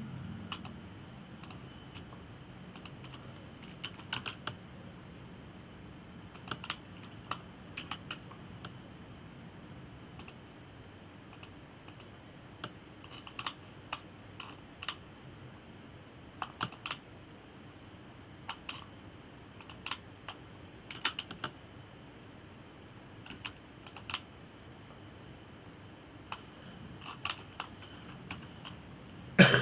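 Computer keyboard keys and mouse buttons clicking in scattered, irregular taps over a faint steady hum, with one louder click near the end.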